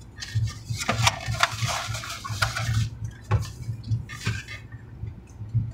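Close-up eating sounds: someone biting and chewing a quesadilla, with irregular wet mouth clicks, denser and crackly for a couple of seconds after the bite.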